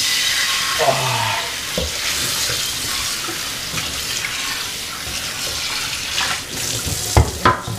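Tap water running steadily and splashing onto a frying pan in a stainless steel sink as the pan is rinsed, with a short knock near the end.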